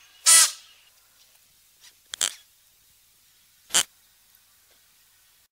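Klipspringer antelope giving short, sharp whistle-like calls, three in all: the first, at the start, is the longest, and the later two are quick and clipped, the middle one doubled.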